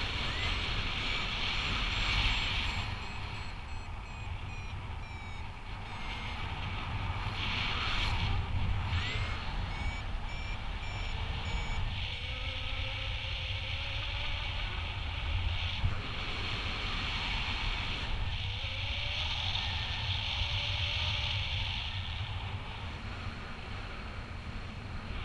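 Wind rushing over the microphone in flight, swelling and easing, with a paragliding variometer's electronic beeps in short pulses whose pitch shifts up and down as the glider meets lift and sink in broken thermals.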